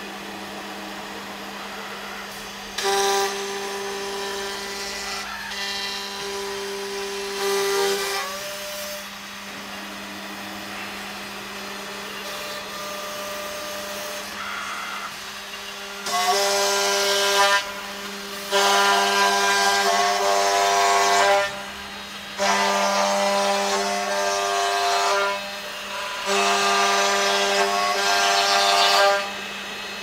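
Electric spindles of an MSK2612 wooden-door lock-hole and hinge-slot drilling machine cutting into the door edge. A high spindle whine with a rasp of cut wood comes in repeated bursts of two to three seconds, over a steady machine hum. The bursts come close together in the second half, and once, a little over a quarter of the way in, the whine's pitch glides upward.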